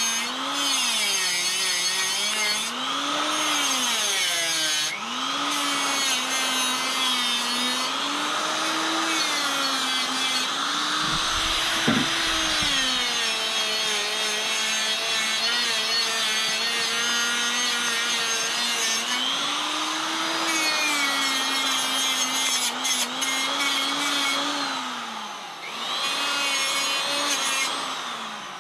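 Handheld electric power tool running on and on, its motor pitch sagging and climbing again and again as it is pressed into the work and eased off, with a brief knock about twelve seconds in.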